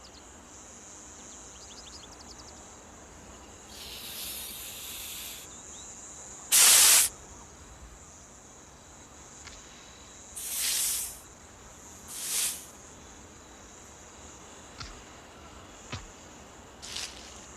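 Hognose snake hissing in four separate bursts as a cobra-like threat display, the second burst the loudest, over a steady high insect drone. A few faint clicks near the end.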